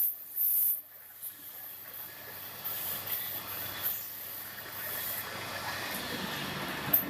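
Wood turning on a lathe: a hand tool scraping the spinning workpiece, a steady hiss with a few louder bursts in the first second and a sharp click near the end.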